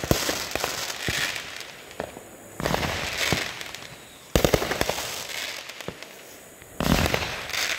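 Aerial fireworks bursting overhead: four loud bangs about two seconds apart, each followed by a dense spray of crackling pops that fades away.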